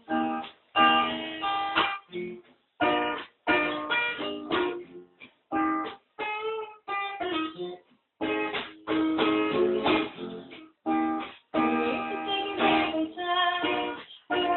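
Guitar playing an instrumental passage of chords in short, stop-start bursts, some notes ringing and others cut off, with brief gaps between them.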